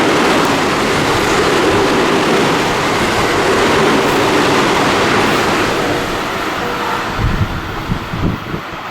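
Train passing through the station at speed: loud, continuous wheel-on-rail rumble and rush of the cars going by, easing toward the end, where a run of low clickety-clack knocks from the wheels over rail joints comes through.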